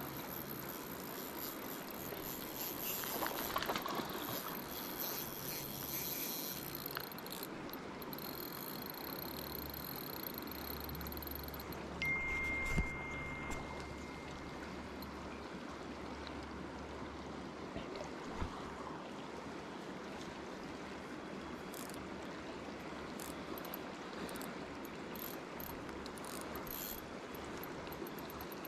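River current rushing steadily past the bank, with a few faint knocks and a brief, steady high tone near the middle.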